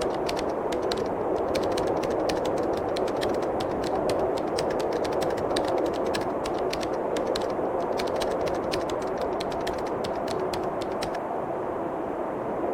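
Steady rush of wind through a forest, with a run of rapid dry clicks and ticks over it that stops about eleven seconds in.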